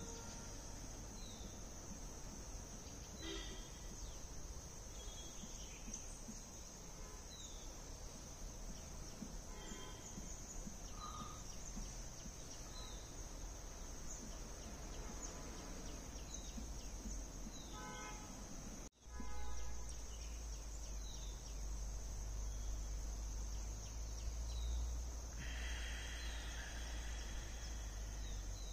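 Outdoor ambience: a steady high-pitched insect drone, with short bird chirps now and then. About two-thirds through, the sound briefly drops out, and a low rumble comes up after it.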